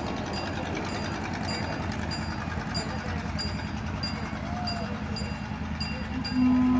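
Ride-on miniature park train running along its track: a steady low rumble of wheels on rail with light clicks at regular intervals. Near the end the train's horn sounds a loud, steady toot.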